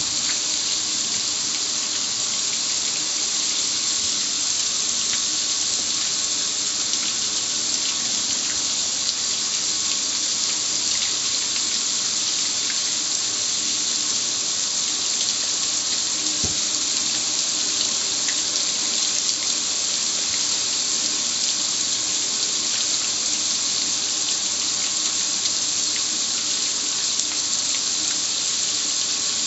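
Garden hose spray hitting a gas grill's lid and control panel, with water streaming and dripping off the metal: a steady hiss of falling water.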